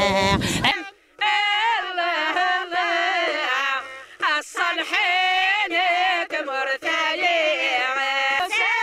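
Group of women singing a Kabyle folk song together on one wavering melody line, unaccompanied. The singing starts after a brief drop-out about a second in.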